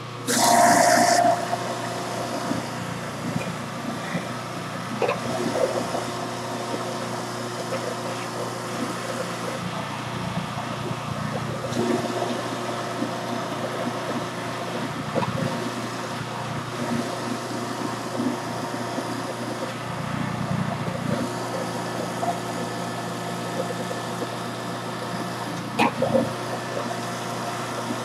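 Electric juicer running with a steady motor hum as leftover fruit and vegetable pulp is pressed down its chute with a wooden pusher to squeeze out more juice. A short, louder burst in the first second, then a few small knocks later on.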